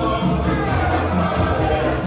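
Church choir singing a gospel hymn over steady instrumental backing with a held bass line.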